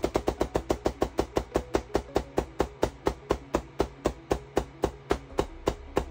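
QCW pancake Tesla coil firing repeated bursts, each a sharp spark crack, in a steady train of about eight a second that slows to about five a second toward the end.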